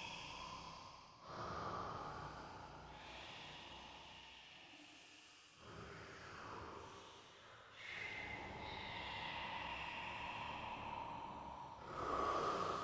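A person snoring: a few long, noisy breaths in and out, the last one drawn out for about four seconds.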